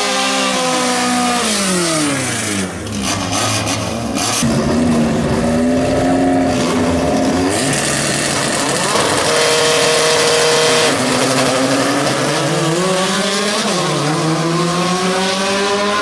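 Volkswagen Gol drag-race car engines. The revs fall away at first, then are held at steady raised revs on the start line. About three-quarters of the way through comes a full-throttle launch: the pitch climbs, drops at a gear shift, and climbs again.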